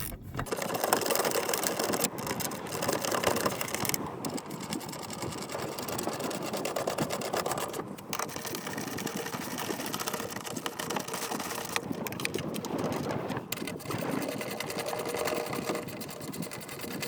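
A ratcheting socket wrench with a 13 mm socket running down the threaded bolts of a truck battery hold-down bracket: a fast, continuous ratcheting rattle that comes in spells with short breaks between them.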